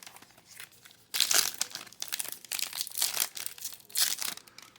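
Trading-card pack wrapper crinkling as it is handled and opened by hand, in several irregular bursts starting about a second in.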